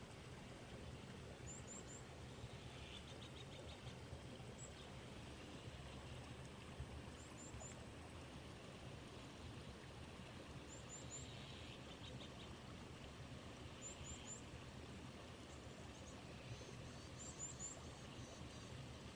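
Faint, steady rush of a waterfall and mountain stream, with a small bird giving short, high three-note chirps every few seconds and a quick trill now and then.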